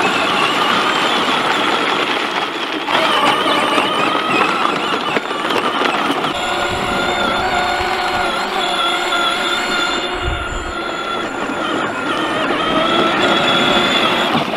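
Electric motors and gearboxes of kids' battery-powered ride-on John Deere tractors whining steadily in high-speed mode as they drive.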